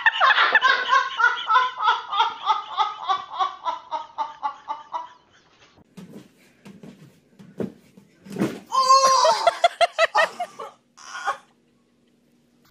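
Hearty rhythmic laughter, about five bursts a second, falling in pitch and fading out over about five seconds. Some light knocks follow, then a sharp thud about eight and a half seconds in, followed by a burst of voice.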